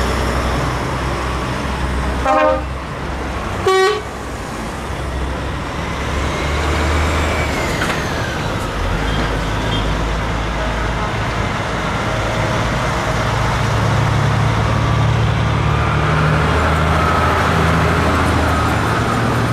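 Heavy trucks in a convoy driving slowly past, their diesel engines running steadily, with two short horn blasts about two and four seconds in.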